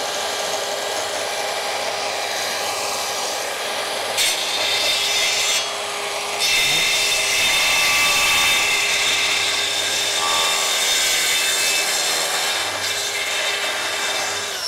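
Festool plunge-cut circular saw running along its guide rail, its blade cutting through the bottom edge of a wooden door: a steady motor whine under the noise of the cut. The cut grows louder about four seconds in, dips briefly near six seconds, then carries on loud.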